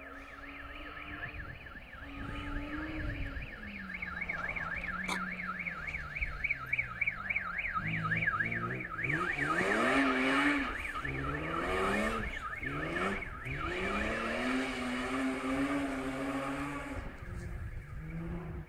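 A BMW 3 Series rally car's engine approaches at full throttle, its pitch climbing and dropping several times with gear changes. It is loudest as the car passes about halfway through, then runs on more steadily as the car pulls away. A fast, evenly warbling alarm tone sounds over the first half and fades out as the car passes.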